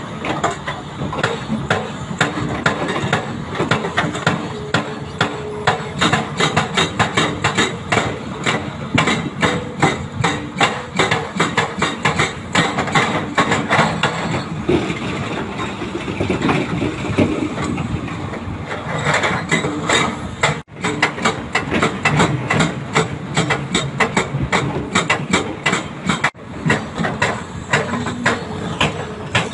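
Hydraulic rock breakers on two crawler excavators (a Doosan DX300LCA and a Hyundai HX340SL) hammering hard rock in rapid, continuous strikes over the diesel engines running. The hammering eases for a few seconds midway, then picks up again.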